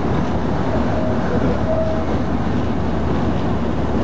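Talbot railcar T44 running slowly over station tracks, heard from inside its cab: a steady engine and running-gear noise with wheels rolling on the rails.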